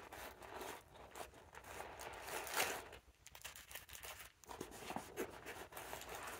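Faint rustling, crinkling and small clicks of first-aid items and their packaging being handled while rummaging through a pack pocket, with a louder rustle about two and a half seconds in.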